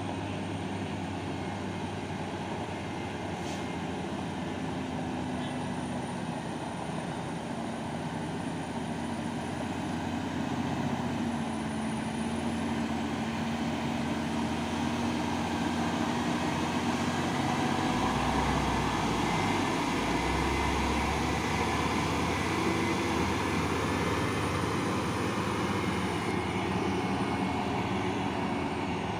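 Heavy diesel truck engine labouring up a steep climb under load, a steady drone that grows louder around the middle.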